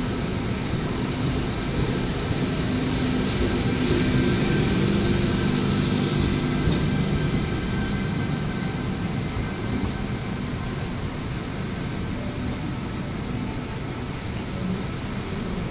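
Double-decker electric multiple-unit train running past along the platform: a steady rumble of wheels on rail, with a few short high hisses about three seconds in. It is loudest a few seconds in and eases off gradually as the last cars go by.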